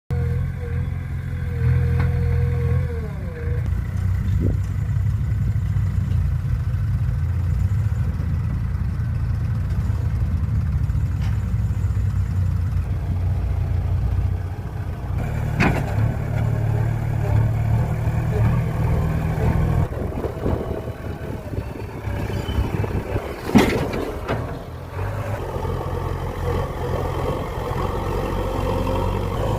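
JCB backhoe loader's diesel engine running steadily, with a brief whine that drops in pitch early on and two sharp metallic knocks, one midway and a louder one about four-fifths through.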